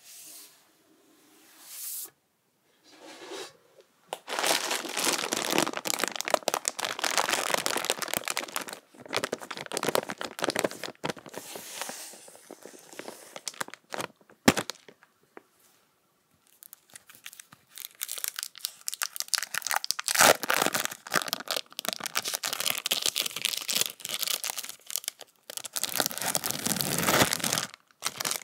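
Close-miked crinkling and tearing of food packaging, in spells of several seconds with short pauses between them.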